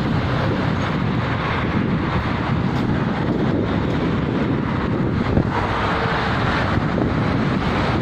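Steady traffic noise from a busy highway, with wind on the microphone.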